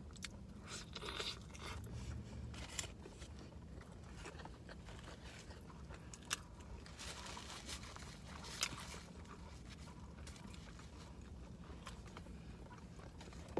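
Person eating close to the microphone: soft crunching and chewing with scattered small clicks, two of them sharper, over a faint steady low hum.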